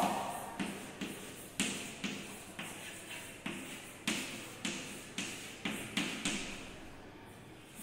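Chalk on a blackboard as letters are written: a series of sharp taps, each trailing off in a short scrape, about two a second, stopping a little over a second before the end.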